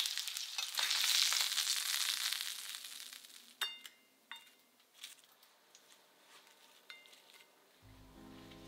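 Food sizzling in a hot frying pan, fading out over the first few seconds. Then a few light clinks of utensils against a ceramic plate, and piano music comes in near the end.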